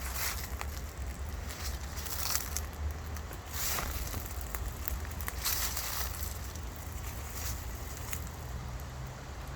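Outdoor walking ambience: a steady low wind rumble on the microphone, with short hissing, rustling bursts every second or two.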